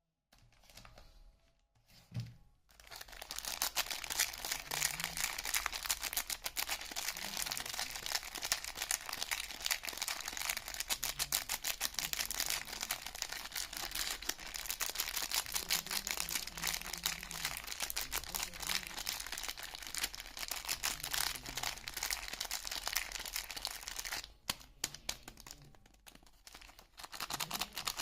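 Soap wrapping being crinkled and torn open by hand: a dense, continuous crackle that starts a few seconds in, drops away near the end and picks up again just before the end.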